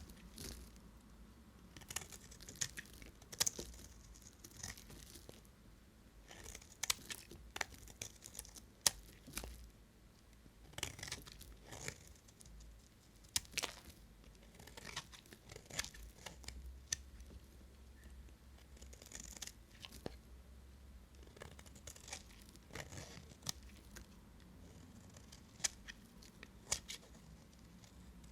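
A knife cutting dry bar soap: a run of crisp, scraping crunches and clicks at an irregular pace.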